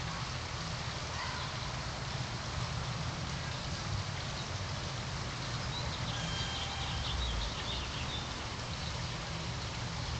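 Outdoor garden ambience: a steady low rumble, with a bird chirping in a quick run of short high notes about six seconds in.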